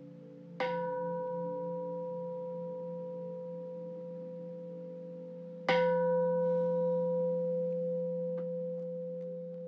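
A meditation bell struck twice, about five seconds apart, the second strike louder, each one ringing on and slowly fading over a steady low drone.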